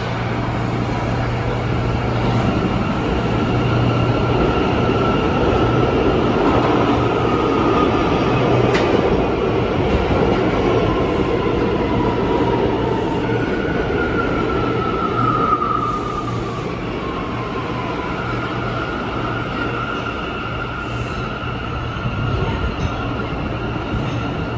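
An R179 subway train running on the track, a steady rumble with a low hum, with high wheel squeals that slide down in pitch midway through.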